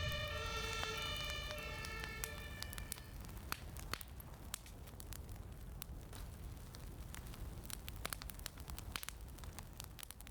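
A siren fading away over the first three seconds, then a fire crackling, with scattered sharp pops over a low steady rumble.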